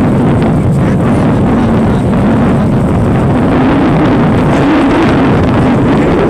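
Wind buffeting the microphone on a moving motorcycle, with the engine droning steadily underneath.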